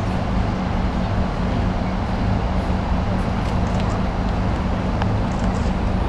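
Steady low rumble of city traffic with a low hum underneath, and a few faint ticks.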